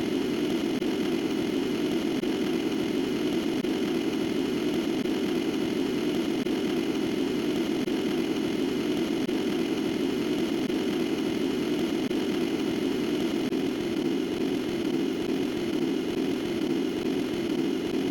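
Steady, unbroken low droning hum with an engine-like sound, level throughout.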